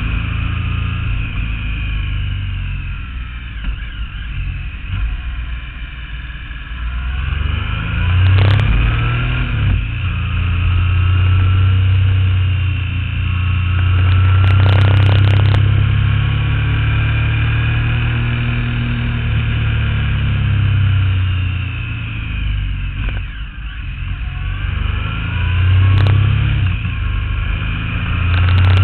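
Motorcycle engine heard from on board, running under load along winding bends, its pitch and level rising and falling as the throttle opens and closes. A few brief sharp knocks break in now and then.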